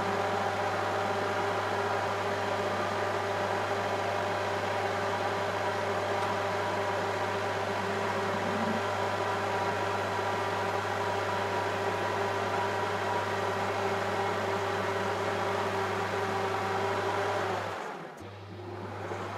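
Metal-turning lathe running while a carbide-tipped tool faces a steel flywheel blank: a steady motor hum with a whine of several held tones. It drops away suddenly near the end.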